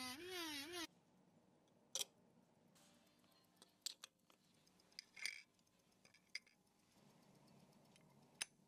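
A handheld rotary tool spins a buffing wheel against a polished steel watch part. Its whine wavers in pitch and stops under a second in. Then near silence, with a handful of short sharp clicks and taps as the metal watch case is handled.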